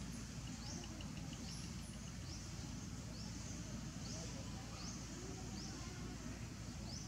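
Outdoor ambience: a short, high rising chirp repeats about once a second over a steady low rumble, with a brief run of faint ticks about a second in.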